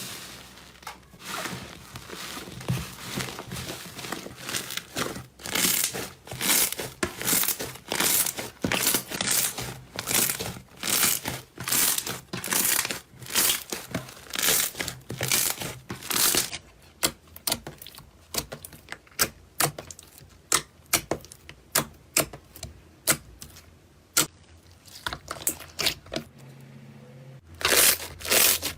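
Slime being squeezed and pressed by hand, giving a rapid run of short clicks and pops that thin out and grow quieter after about the halfway point, then pick up again near the end.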